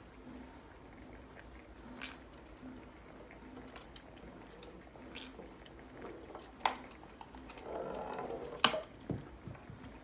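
Sharp taps and knocks of conures' feet and beaks and a small toy ball on a wooden tabletop soccer board, with a short scraping rustle between the two loudest knocks, which come about two thirds in and near the end.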